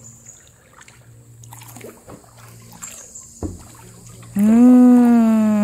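Kayak paddling with faint water splashes and a light paddle knock. About four seconds in, a person's voice holds one long, loud call that falls slowly in pitch.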